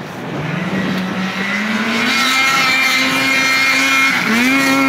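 Ski-Doo REV snowmobile's two-stroke engine revving hard as the sled accelerates, its pitch rising over the first two seconds and then holding high, with a brief dip about four seconds in before it climbs again. The freshly swapped-in motor pulls cleanly and screams.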